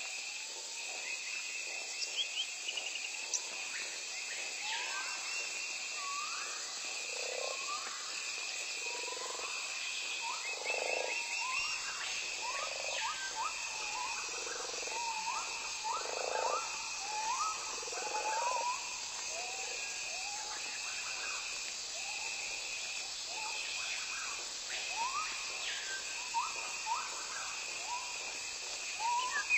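Forest ambience: a steady, high insect drone with many short, rising animal calls, thickest through the middle of the stretch.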